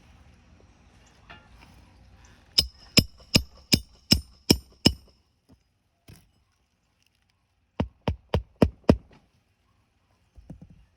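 Hammer driving roofing nails through an asphalt shingle: a run of seven sharp strikes about three a second with a slight metallic ring, then after a pause four more strikes.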